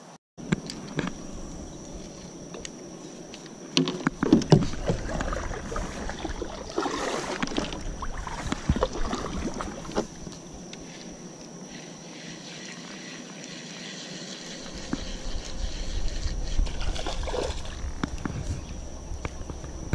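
Water sloshing against a plastic sit-on-top kayak, with scattered knocks and rubbing on the hull, loudest about four seconds in. A steady high insect drone runs underneath.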